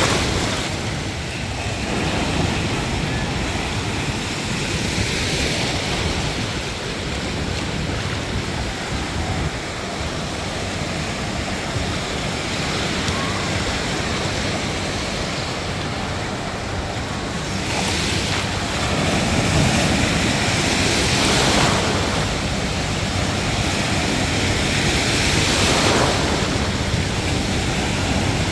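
Ocean surf breaking and washing ashore without a break, with louder wave crashes about two-thirds of the way in, again a few seconds later, and near the end. Wind rumbles on the microphone.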